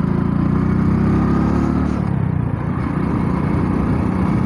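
Hero Splendor Plus's single-cylinder four-stroke engine running steadily at road speed under the rider, with an even rush of wind and road noise.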